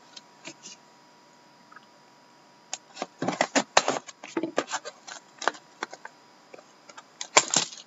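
Packaging being handled as a sealed box of hockey trading cards is opened: a few faint clicks, then from about three seconds in a rapid, irregular run of crinkling and clicking cardboard and wrapper noises.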